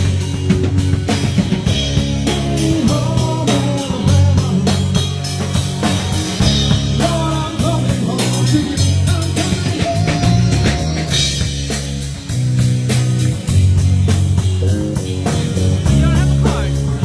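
Live rock band playing: a drum kit keeps a steady beat over low bass notes.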